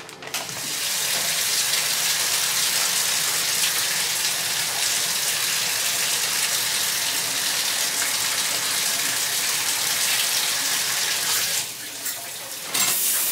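Shower running: a steady rush of water spraying into a bathtub behind the curtain. It starts about half a second in and briefly drops off near the end.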